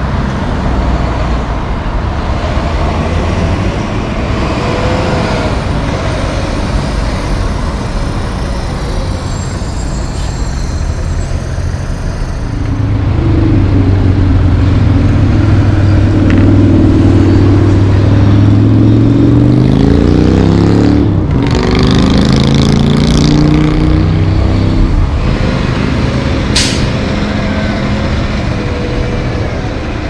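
Street traffic with heavy diesel trucks passing. Midway, a loud engine holds a steady note and then rises in pitch as it pulls away, followed by a short hiss of truck air brakes.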